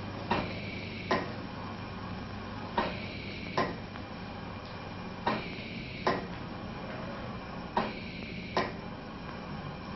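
Sharp clicks in pairs, the two clicks less than a second apart, each pair repeating about every two and a half seconds, over a steady low hum.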